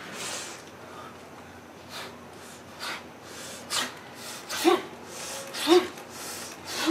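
A woman's hard breathing from exertion while dancing: sharp exhalations about once a second, turning into short voiced grunts in the second half.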